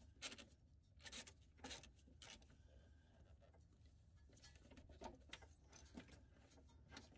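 Faint, irregular clicks of a ratchet wrench with socket and extension working a control arm to frame bolt loose.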